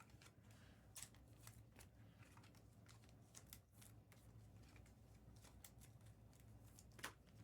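Near silence: faint room tone with scattered light clicks and ticks, the clearest about a second in and near the end.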